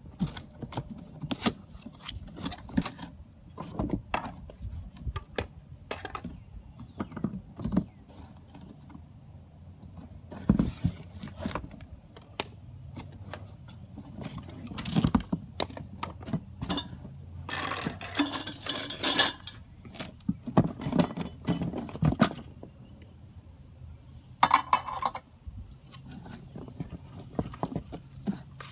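Unboxing a Sun Joe electric tiller: cardboard rustling and scraping, with repeated knocks and clinks as the metal handle tubes and the tiller body are lifted out of the box and set down on concrete. The longest stretch of rustling scrape comes about two-thirds of the way through.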